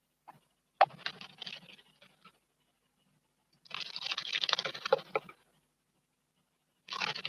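Small birds bathing in a stone water basin: three short bursts of splashing and wing-fluttering, the middle one the longest.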